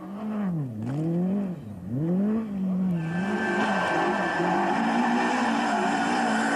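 Opel Corsa rally car's engine revving hard, its pitch dropping and climbing again twice in quick succession, then holding a high, steady note. A rushing hiss joins it about three seconds in.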